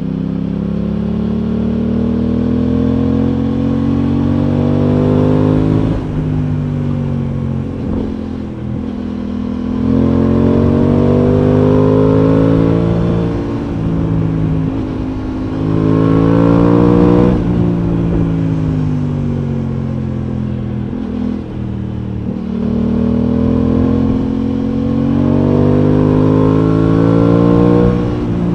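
Aprilia Tuono 660's parallel-twin engine under way. Its pitch climbs several times as the bike accelerates and falls off between climbs as the throttle is closed, with a sharp drop about two-thirds of the way in.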